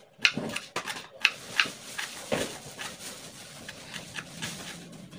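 Kitchen knife slicing shallots on a wooden cutting board: a run of irregular sharp taps of the blade hitting the board, about two or three a second.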